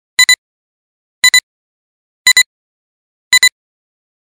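Electronic countdown beeps of a film-leader style intro: a quick double beep about once a second, four times, each a high electronic tone with silence between.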